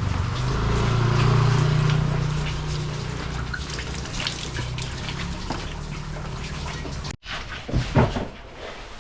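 Water running and sloshing as dive equipment and metal tools are rinsed off in fresh water, then a couple of sharp knocks after a sudden break near the end.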